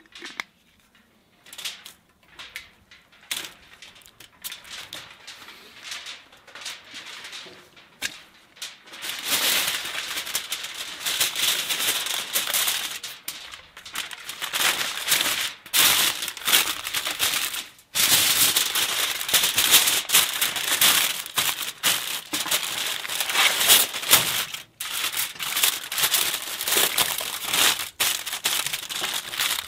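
Aluminium foil crinkling and crumpling as it is folded over and pressed tight around a rack of ribs. The first several seconds hold only a few light taps and clicks; the loud crinkling starts about nine seconds in.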